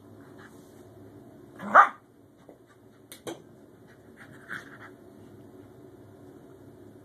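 Scottish terrier giving one loud, sharp bark about two seconds in, then a shorter, softer bark a few seconds later, with a single sharp click between them.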